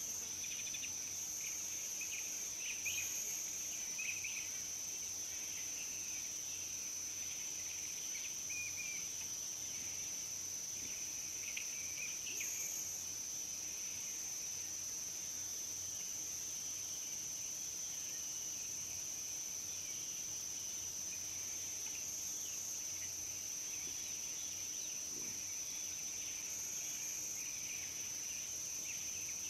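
Steady high-pitched insect trill, with a few short bird chirps scattered through the first half.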